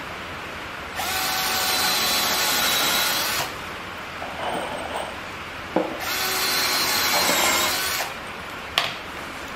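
Cordless drill driving screws into 2x4 lumber: two runs of the motor, the first about two and a half seconds long and the second about two, with a couple of sharp knocks between and after them.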